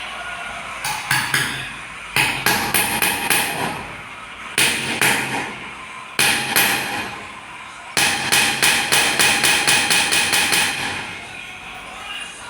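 Metal being struck with a hammer in five groups of quick blows, the longest a run of about five or six strikes a second near the end, each group carrying a metallic ring.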